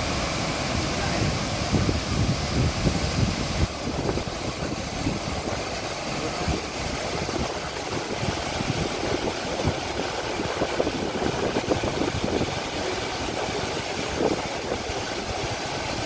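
Steady roar of a large waterfall in monsoon flood, heavy muddy water pouring over a cliff into a churning pool. Low buffeting rumbles through the first four seconds, then the roar carries on even.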